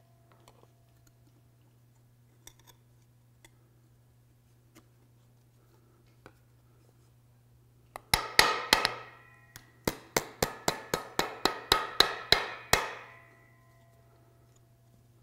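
Small ball-peen hammer tapping the tabs of the metal top plate on a ball-and-trunnion U-joint housing, bending them into place. About halfway in comes a quick run of sharp metallic taps with a short ring, about four or five a second, which stops about two seconds before the end.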